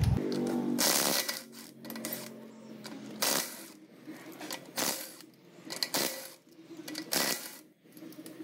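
Cordless impact wrench spinning a car's wheel lug nuts in five short bursts over about six seconds, the first the longest, with light metallic clinks between them.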